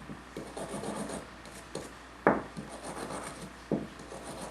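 Wire brush scrubbing an old spark plug in short, repeated scraping strokes, with a sharper knock about two seconds in and another near the end.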